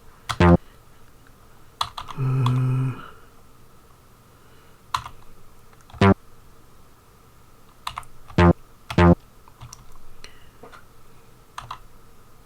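Short previews of an Amiga soundtracker bass sample sounding as tracker notes are entered: a held note about two seconds in and four brief plucked notes later on. Computer keyboard keys click between them.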